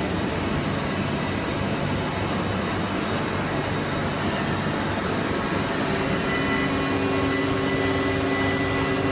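Steady industrial machinery noise: an even rush with a low hum, joined about six seconds in by a few steady tones.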